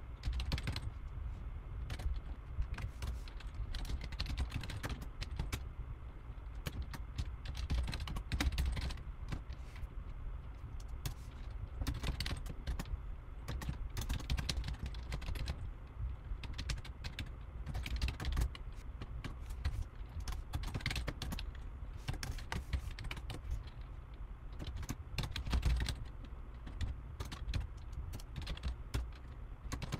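Computer keyboard typing: a quick, irregular run of key clicks that pauses briefly now and then, over a steady low hum.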